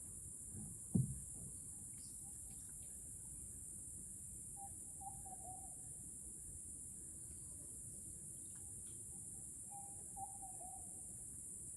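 Rainforest insects droning steadily at a high pitch, with a bird giving the same short wavering call twice, about five seconds apart. A single dull knock about a second in is the loudest sound.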